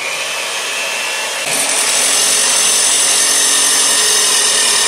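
Handheld electric mixer running, its beaters whirring through thick pumpkin cake batter; the sound gets louder and brighter about a second and a half in.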